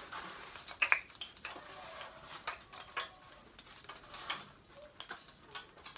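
Scattered clicks and light knocks of kitchen handling over a faint steady hiss, with the two loudest clicks close together about a second in.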